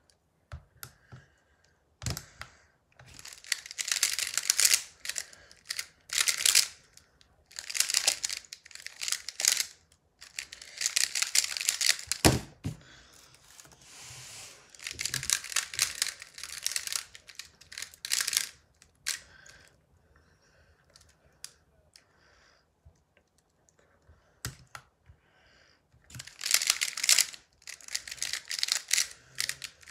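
Square-1 puzzle being turned fast by hand, its plastic layers clacking in bursts of rapid turns separated by short pauses. A single sharp knock comes a little before the middle.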